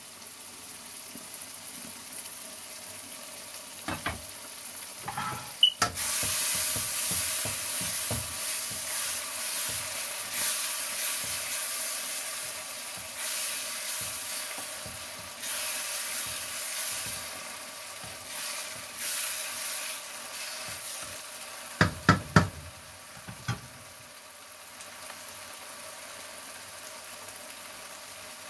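Tuna and tomato curry sizzling in a hot wok while a wooden spoon stirs it. The sizzle grows louder about six seconds in and dies down a few seconds before the end, with a few sharp knocks of the spoon against the pan just before and after the louder stretch.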